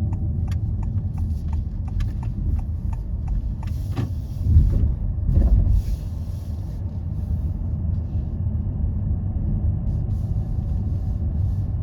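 Low, steady rumble of a car on the move, swelling louder about four to six seconds in. A quick regular ticking, about four ticks a second, sounds over it at the start and fades out within the first two seconds.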